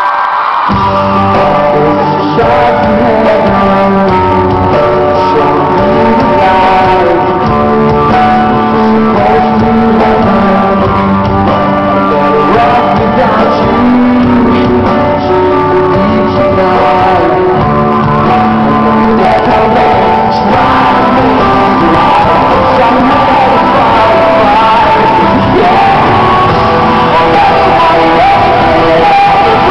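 Live pop-rock band playing loud, with a lead singer, electric guitar and drums. The band comes in under a second in.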